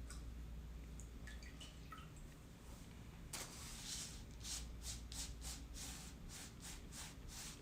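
A few small clicks and light taps, then from about three seconds in a run of short rubbing strokes, about two a second, as clay trimmings are cleared from a pottery work surface.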